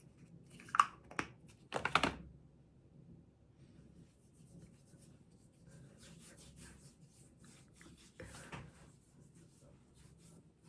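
Handling noises: two or three sharp clicks and knocks in the first two seconds, then light scratchy rustling and rubbing later on.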